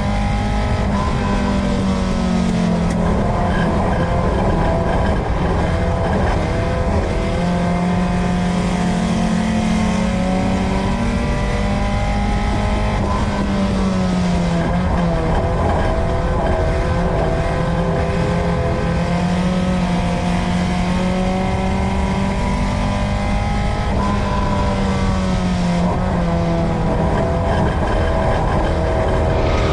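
Dirt-track race car engine heard from inside the car, running hard under load over tyre and chassis noise. The revs sag and climb back about every eleven seconds as the car goes around the oval.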